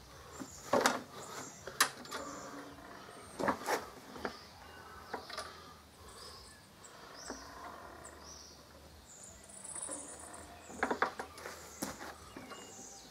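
Scattered clicks and knocks from the handle of a Poulan Pro PR450N20S push mower being fitted to its deck brackets, a cluster in the first few seconds and another near the end, with faint bird chirps behind.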